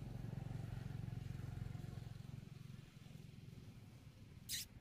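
A motor vehicle engine, like a motorcycle, runs with a low hum and fades out about three seconds in. Near the end comes one brief, sharp, high-pitched squeak, the loudest sound in the stretch.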